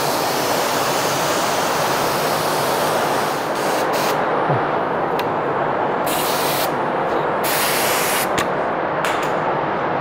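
Steady rush of a paint booth exhaust fan, with several bursts of high air hiss from an HVLP spray gun as its trigger is pulled: a long one over the first four seconds, then shorter ones.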